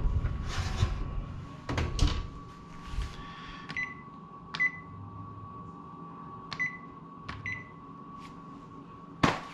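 Oven door being shut with a few knocks, then an electric range's keypad beeping four times as its buttons are pressed, over a faint steady hum.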